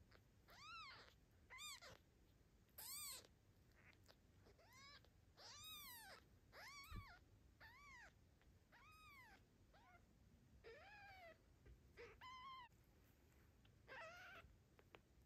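Newborn kitten mewing repeatedly with thin, high cries, roughly one a second, each rising and then falling in pitch.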